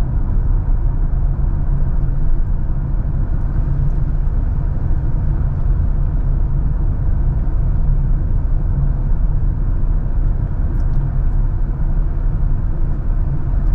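Steady low rumble of a car driving along a rough, damaged road: tyre and engine noise with no change in pace.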